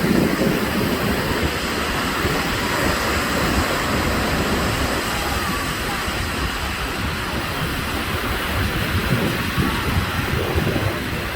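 Mediterranean surf washing onto the beach: a steady, unbroken rush of waves.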